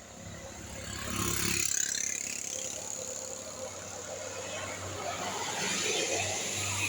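A road vehicle passing close by: engine and tyre noise rises sharply about a second in and stays loud, with a low engine hum underneath.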